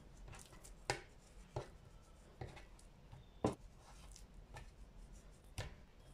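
Raw beef fillets being handled and laid down on a wooden cutting board: soft slaps and taps, about one a second.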